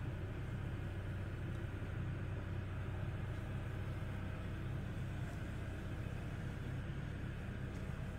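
Old rice mill machinery running with a steady low hum.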